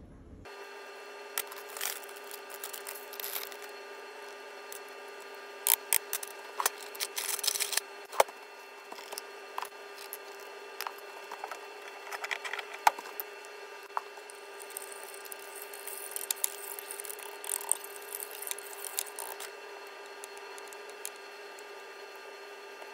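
Kitchen food-prep handling sounds: scattered clicks, taps and short rustles as condiments and seasonings go into a glass baking dish and beef short ribs are laid in the marinade, over a steady hum.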